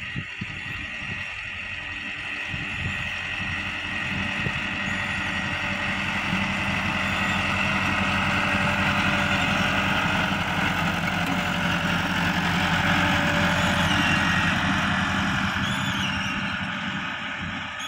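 Tractor engine running steadily under load while pulling a seed drill across the field. It grows louder as the tractor approaches, peaks as it passes close by, then begins to fade.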